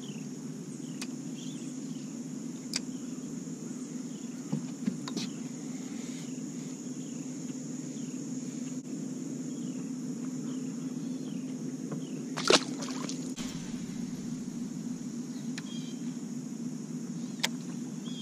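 Steady outdoor ambience of a high insect buzz over a low steady hum, with a few sharp clicks and knocks, the loudest about twelve and a half seconds in.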